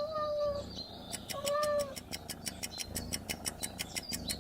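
A domestic cat meowing twice, each meow under a second long with a rise and fall in pitch. This is followed by a fast, even ticking of about five ticks a second.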